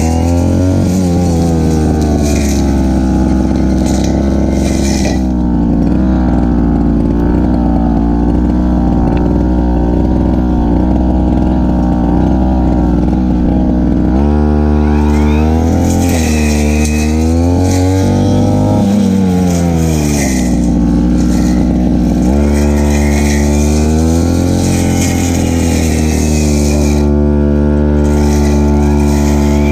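Stihl FR3001 brush cutter engine running hard, steady for the first half, then its speed dipping and picking up again several times as the blade is loaded cutting grass.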